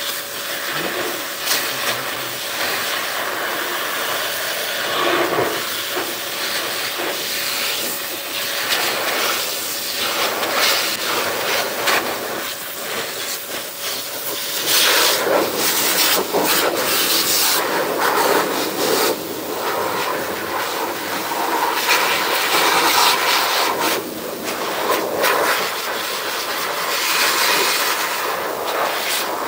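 Pet grooming blower pushing a steady rush of air through its corrugated hose to dry a long-haired cat's coat. The hiss swells and dips as the nozzle moves over the fur.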